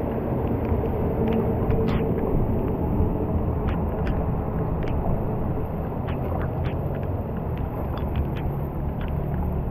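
Muddy floodwater running into a roadside drain as it is cleared: a steady low rumble of moving water, with scattered small splashes and raindrops.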